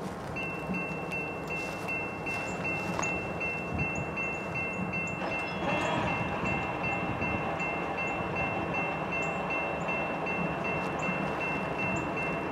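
Railroad grade crossing warning bell starting about half a second in and ringing on in quick, even strokes, signalling that the crossing has activated for an approaching train while its gates come down. Wind on the microphone underneath.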